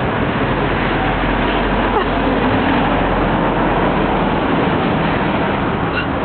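Steady road traffic noise: motor vehicles running close by, a dense even roar with a low engine rumble underneath.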